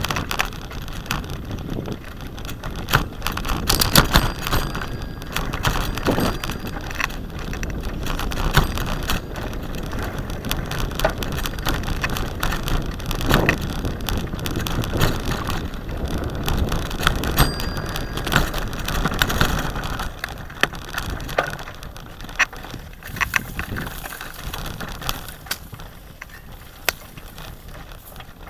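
Bicycle riding over a rough sandy dirt track: tyres crunching on sand and ruts, with frequent rattles and knocks from the bike as it jolts over bumps. It gets quieter in the last few seconds.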